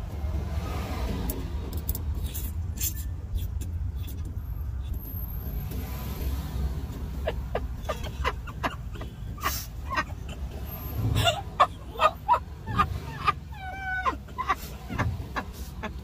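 Steady low hum of the car cabin. In the second half come short giggles and laughs, some squeaky and wavering.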